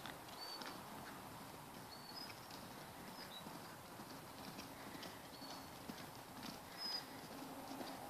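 Faint hoofbeats of a pony cantering on a sand arena surface.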